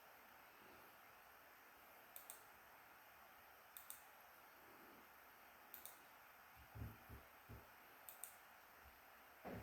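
Near silence broken by faint sharp clicks, mostly in pairs, every second or two, and a few soft low knocks about two-thirds of the way in: small items being handled.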